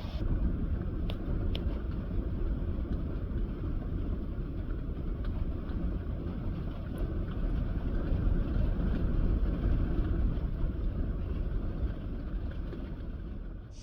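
Storm wind rumbling and buffeting, a low noise that swells and eases in gusts, strongest a little past the middle, with a couple of faint clicks about a second in.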